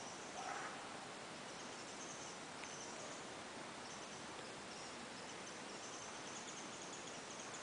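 Steady outdoor ambience with insects chirring in a high, pulsing band, and one short faint sound about half a second in.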